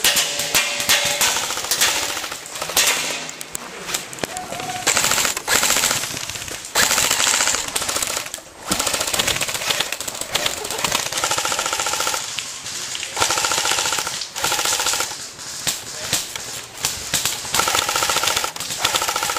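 Airsoft guns firing repeated bursts of rapid full-auto fire.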